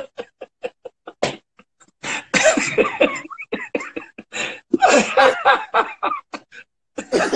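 A man laughing hard and helplessly, in breathless bursts: a quick run of short gasping pulses at first, a sharp outburst about a second in, then longer wheezing cackles with pauses between.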